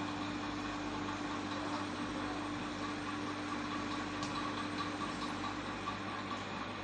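Steady machine hum with a low, even tone that fades out about five seconds in, and a few faint ticks.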